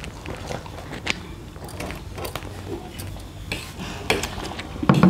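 Spoons and forks clinking and scraping against steel plates in irregular light clicks as people eat, with a louder burst of sound near the end.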